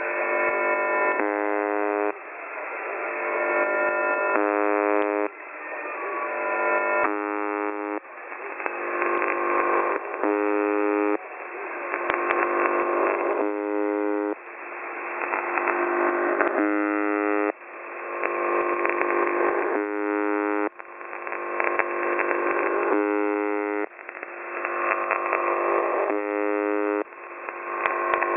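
Shortwave radio reception of the UVB-76 station, 'The Buzzer': a harsh buzzing tone heard through narrow radio audio. It repeats in a cycle of about three seconds, each cycle swelling in loudness and then cutting off sharply.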